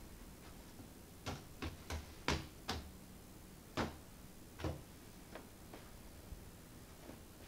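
A series of sharp, short taps and clicks at an irregular pace, several close together and then further apart, as a person moves about a room handling a cloth.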